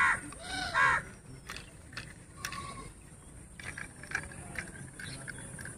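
Two short animal calls in the first second, then scattered light clicks and taps as a small toy tractor is picked up and turned over in the hands.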